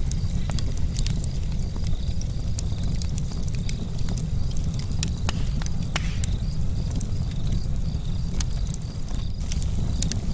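Charcoal campfire crackling, with frequent sharp pops and snaps over a steady low rumble.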